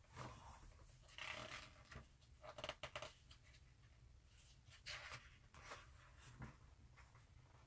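Faint rustling of an art book's paper pages being handled and turned, in several short bursts.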